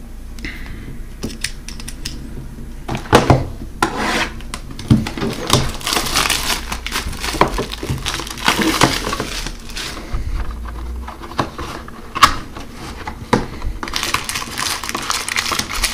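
Plastic shrink-wrap being torn and crinkled off a cardboard trading card box, with irregular clicks and scrapes of the box being handled. Near the end the cardboard lid is lifted open.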